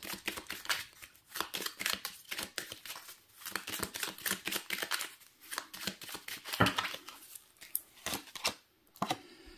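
Oracle cards being handled out of view as the next card is drawn: a run of quick, crisp clicks and flicks of card stock, with one heavier tap about two-thirds of the way in.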